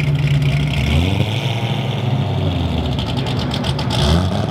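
V8 engine of a C6 Chevrolet Corvette running at low speed as the car rolls away, with a short rev about a second in and another near the end.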